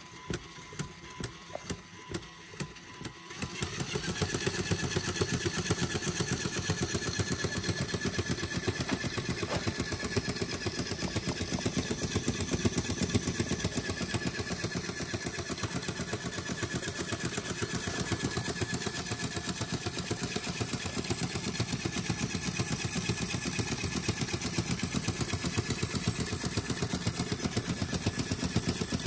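Lego Technic overhead-cam engine model running: the plastic valves, cam and pistons click slowly, about two times a second, then about four seconds in it speeds up and gets louder into a fast, steady clatter with a thin whine.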